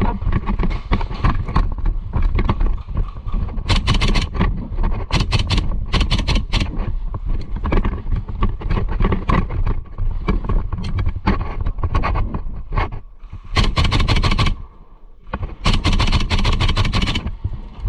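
Airsoft gas-blowback guns firing in rapid bursts: several bursts about four to six seconds in and two more near the end, with scattered single shots, over a steady low rumble.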